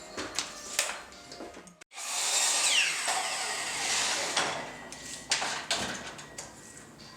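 Scattered clicks and knocks of carpentry work, then a power tool runs for about two and a half seconds with a falling whine. It fades back to sharp clicks and taps.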